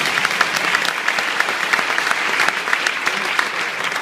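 A large audience clapping their hands together: a dense, steady crackle of many claps, loud throughout.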